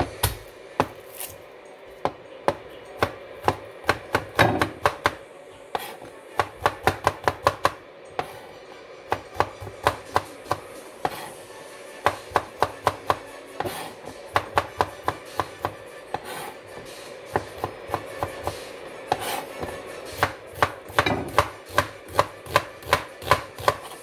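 Chef's knife chopping garlic cloves on a plastic cutting board: quick, irregular runs of sharp knocks, several a second, with short pauses between runs.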